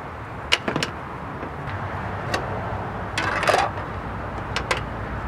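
Sharp clicks and knocks of plastic air-intake ducting and the intake box being worked loose and pulled out of a car's engine bay, with a short rattling scrape about three and a half seconds in, over a steady wind rumble on the microphone.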